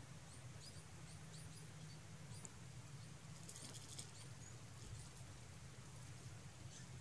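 Near silence: a steady low room hum with a few faint, short high chirps early on and one brief soft crackle about three and a half seconds in.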